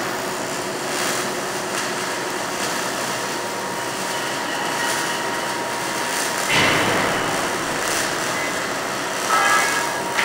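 Stick-welding (SMAW) arc burning on a 6011 electrode: a steady hiss, with a louder surge about six and a half seconds in.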